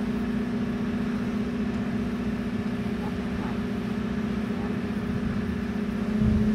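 A steady mechanical drone at one constant low pitch, like a motor or engine running, that grows louder about six seconds in.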